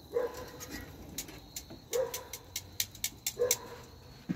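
A dog whining: three short whines of steady pitch, about a second and a half apart, with faint light clicks in between.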